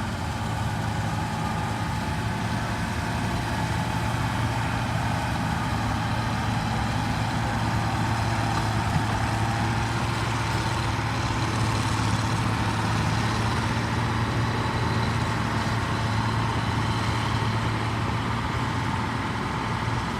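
Engine of a wheat-harvesting machine running steadily at constant speed, a continuous drone with a strong low hum.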